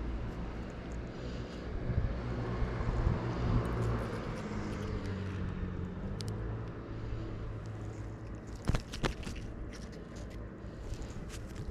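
Low, steady engine rumble, with a few sharp clicks about nine seconds in.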